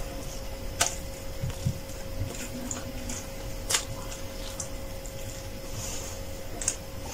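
Chewing and biting into a crispy flatbread sandwich close to the microphone, with three sharp crunches about three seconds apart and small crackles between them, over a faint steady hum.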